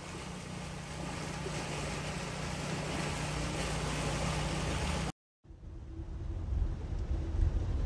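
Floodwater rushing past a vehicle, with the steady hum of its idling engine underneath and the rush growing louder. After a brief cut about five seconds in, a low rumble of the vehicle driving along a flooded road.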